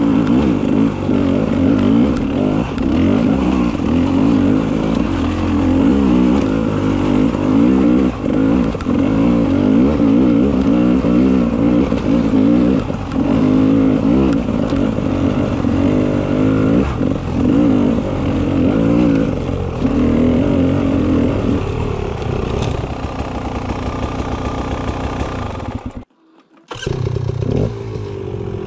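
Beta 300 RR single-cylinder two-stroke enduro motorcycle engine being ridden on a trail, revving up and down with the throttle, with some chassis clatter. Near the end it runs lower and steadier, cuts out for a moment, then comes back.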